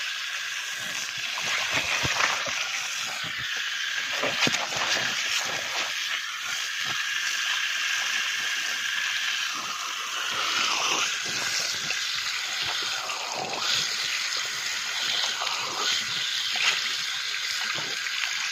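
Water spraying from a garden hose nozzle and splattering onto an animal's coat and the wet gravel ground: a steady hiss with irregular splashes.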